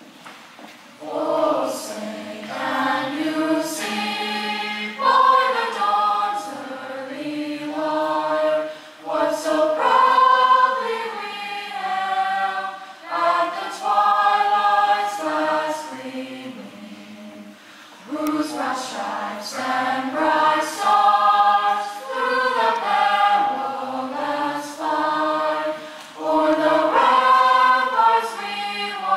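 Mixed high school choir singing without accompaniment, in sustained phrases of a few seconds with brief breaths between, echoing in a gymnasium.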